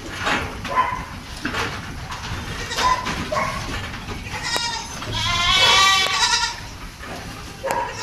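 Goats bleating: a string of short bleats, then one long, loud bleat about five seconds in.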